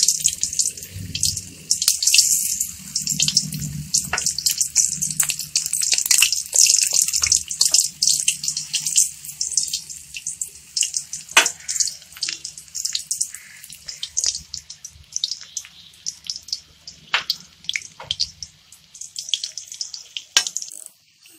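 Lotus-flower pakoras deep-frying in hot oil in an iron kadhai: a dense crackling sizzle full of sharp pops, dying down near the end.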